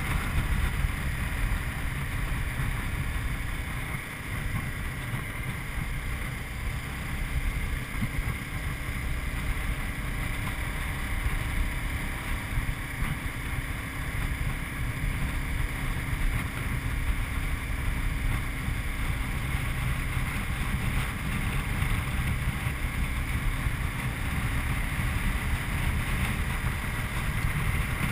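Wind rush buffeting the microphone of a Honda CBR250R (MC41) riding at a steady cruising speed, with the bike's single-cylinder engine running underneath. It is even and unbroken throughout.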